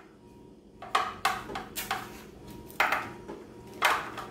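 Dishes and utensils clattering in a kitchen sink: a handful of short knocks and clinks, irregularly spaced, with the loudest near the end.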